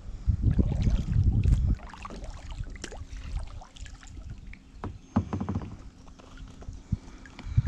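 Plastic kayak being paddled: paddle splashes and knocks against the hull, with heavy thumping in the first two seconds and scattered lighter knocks after.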